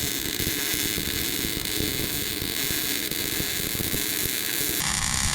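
MIG welder arc crackling steadily, then cutting off abruptly near the end. The weld ran too hot and burned through the metal.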